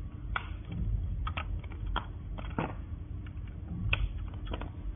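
Plastic clicks and light scraping from a thin metal pick working the clips and louvers of a BMW X5 E70 centre dashboard air vent assembly. There are about eight sharp, irregular ticks.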